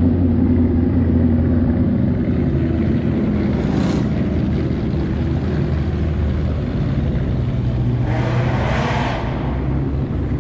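Ford Mustang exhaust rumbling at low speed, a steady deep drone, with a louder rush that swells and fades around eight to nine seconds in.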